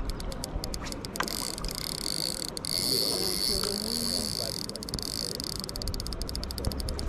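Spinning reel being cranked to retrieve a drop-shot rig: a steady, fast whir with rapid clicking from the reel.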